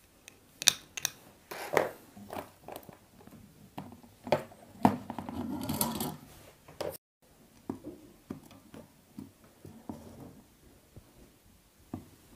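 Light clicks, taps and scraping from a soldering iron and hand tools working on a small plastic LED bulb, busiest in the first seven seconds, then fainter scattered ticks.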